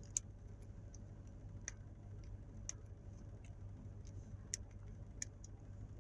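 Faint, irregular clicks and taps from fingers picking at the plastic casing of an L.O.L. Surprise toy ball, over a steady low hum in the car cabin.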